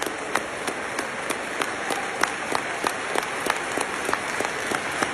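Audience applauding steadily, with sharper claps from someone close by standing out about three times a second.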